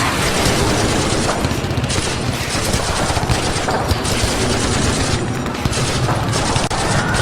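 Battle gunfire sound effect: many guns firing at once, dense overlapping shots and rapid bursts going on without a break.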